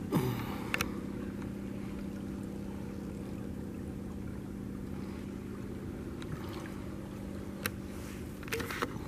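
Small creek running steadily over a shallow bed, with a faint steady hum under it and a few light knocks about a second in and near the end.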